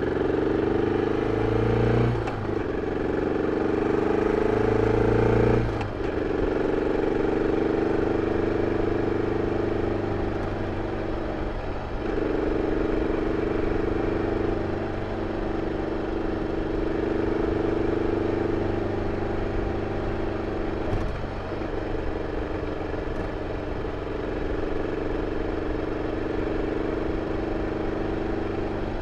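BMW F 650 CS Scarver's single-cylinder engine through its original exhaust, accelerating with the pitch climbing and dropping sharply twice as it shifts up, about two and six seconds in. It then settles into a steady cruising note, with brief dips where the throttle eases off three times.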